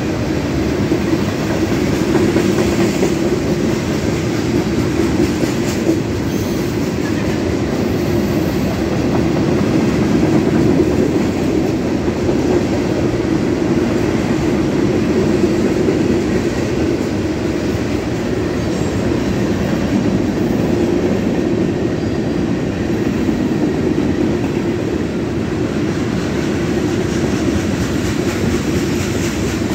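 Freight train cars (boxcars, tank cars and covered hoppers) rolling past, a steady rumble of steel wheels on the rails.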